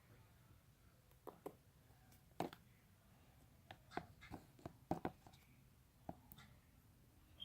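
Homemade glue and shaving-cream slime being squeezed and stretched in the hands, giving soft, irregular clicks and pops, the loudest about two and a half and five seconds in.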